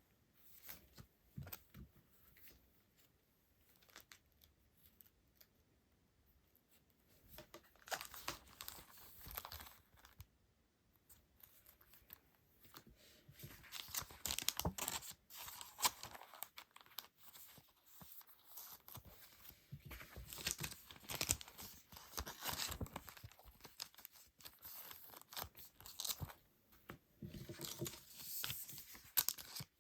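Packaging being handled and torn open, crinkling and rustling in irregular bursts with small clicks. It is sparse at first and gets busier from about eight seconds in.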